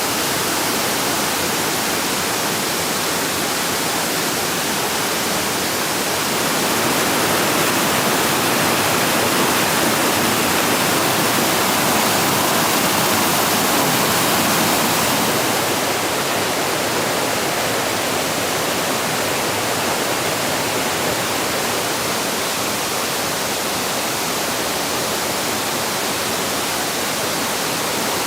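Steady rushing of water, swelling a little about seven seconds in and easing back about fifteen seconds in.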